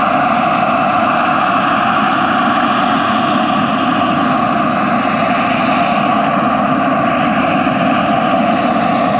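Large-scale RC Bell 430 helicopter hovering, its JetCat PHT3-XL turbine running with a steady whine under the spinning rotor.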